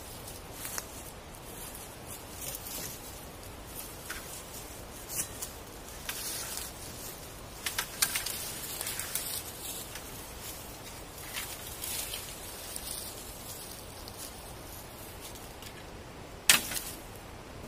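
Dry leaves and dead twigs crackling and rustling as a person moves through forest leaf litter and handles fallen dead branches. Near the end comes one sharp crack of dry wood.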